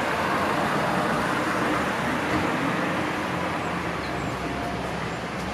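Steady street traffic noise: a continuous hum of cars on the road below.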